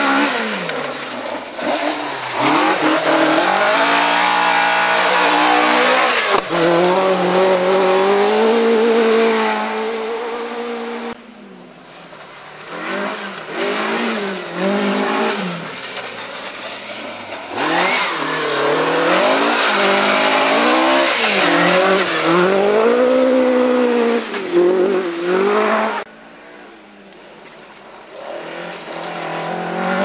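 Rally car engines at full throttle on a special stage, their pitch climbing through the gears and dropping sharply on lifts and downshifts. The sound breaks off abruptly a few times as one car gives way to the next.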